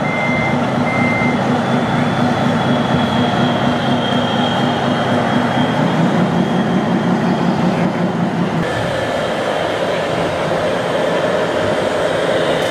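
Radio-controlled scale semi-truck models running, with an engine-like drone. There is a repeated high beep in the first second or so. About nine seconds in, the drone changes to a higher note.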